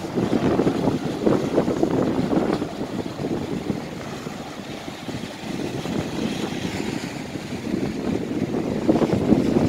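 Wind buffeting the microphone in gusts over the wash of sea waves breaking on rocks and concrete breakwater blocks. The gusts are strongest in the first couple of seconds and again near the end.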